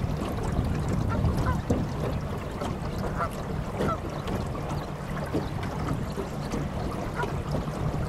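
Canada geese giving scattered short honks over the steady low hum of a boat's motor.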